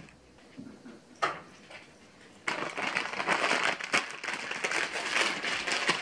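Plastic grocery bag and packaging crinkling and rustling as it is handled, starting loudly about two and a half seconds in and going on to the end. Before it, one short knock about a second in.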